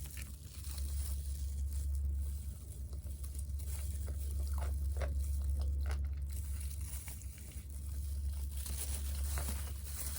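A person chewing crispy fried food with its mouth close to the microphone, with scattered crisp crunches, most of them near the middle, over a steady low hum.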